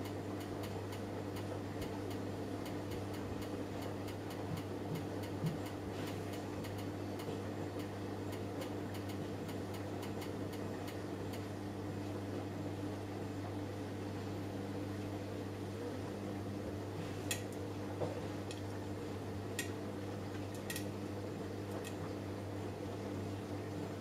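Samsung Eco Bubble front-loading washing machine running a cycle: a steady motor hum as the drum turns the laundry, with faint ticking through the first half and a few sharper clicks in the last third.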